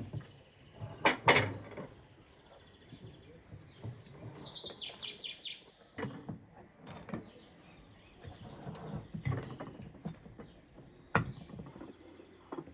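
Metal serving tongs and stacked china plates clinking as fried stuffed meatballs are served, a few short sharp clinks, loudest about a second in and again around six, seven and eleven seconds in. A small bird sings a quick run of high chirps that falls in pitch about four to five seconds in.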